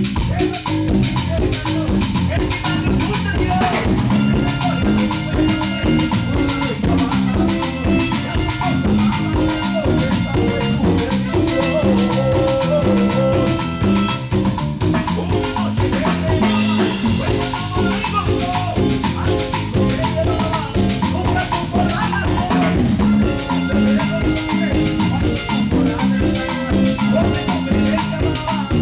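Live band playing a Latin dance number at sound check, with a steady drum beat under bass and melody instruments.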